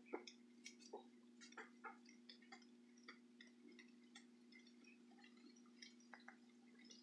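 Near silence: a low steady hum with faint, scattered short clicks and ticks, a few of them sharper in the first couple of seconds.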